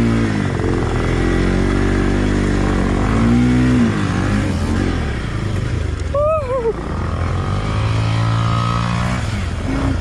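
Bajaj Pulsar NS200 single-cylinder motorcycle engine, fitted with a modified silencer, running under way on a rough dirt track. The revs rise and fall as the throttle is worked. A brief vocal call comes about six seconds in.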